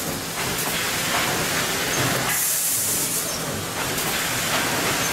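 Automatic bag packaging machine running with a steady mechanical clatter. About two seconds in comes a burst of air hiss lasting about a second, part of a cycle that repeats every three and a half seconds.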